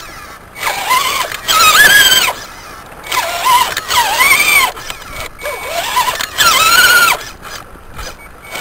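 Scale RC 4x4 crawler's electric motor and gear train whining in repeated short bursts as the throttle is worked, the pitch rising and sagging in each burst as the wheels spin and bog in thick mud.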